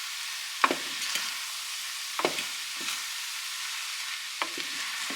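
Pancit noodles with vegetables and chicken sizzling in a hot pan as they are stirred and tossed, with a steady high hiss and four short knocks of the stirring utensil against the pan.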